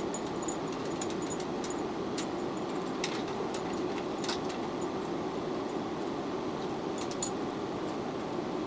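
Scattered light metallic clinks and ticks from small hardware being handled during the rack's assembly, clustered near the start and again about three, four and seven seconds in, over a steady hum.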